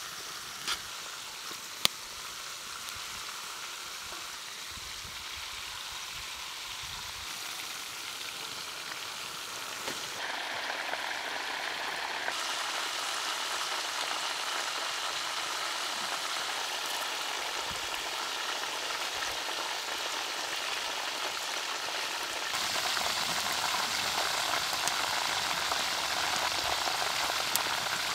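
Beef ribs frying in a large pot, the fat sizzling in a steady hiss that grows louder about ten seconds in and again near the end. Two sharp clicks near the start.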